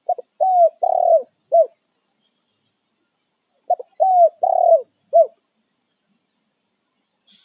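Spotted dove (tekukur) cooing: two song phrases, each a quick run of four or five deep notes, the second starting about three and a half seconds after the first.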